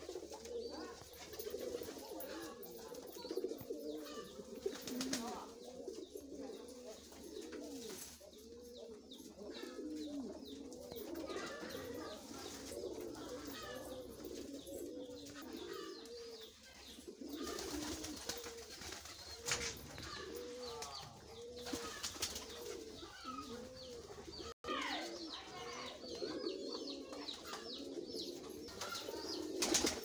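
A flock of domestic pigeons cooing, many low coos overlapping one after another without a break.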